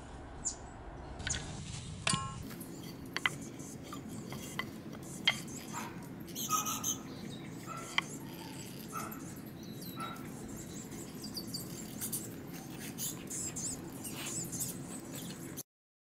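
Light taps, clicks and scratches of hands handling a wooden slat and marking it with a pencil, with a few faint short bird chirps in the background. The sound cuts off suddenly just before the end.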